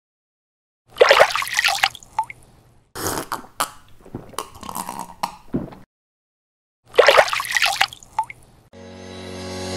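Cartoon sound effects of a drink being sipped through a straw: slurping and gulping in a few short bursts with silent gaps between, the first the loudest. Music fades in near the end.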